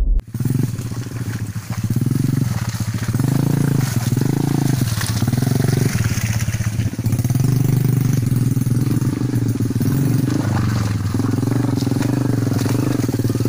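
Motorcycle engine running at low revs under a heavy cargo load, the engine note swelling and easing every second or so as the bike rides closer.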